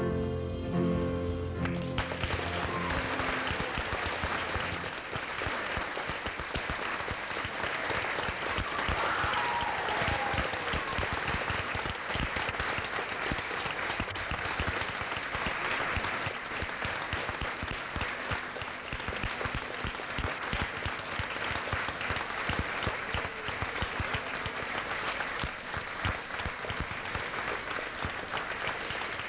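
The last chords of the closing stage music stop about two seconds in, giving way to steady audience applause.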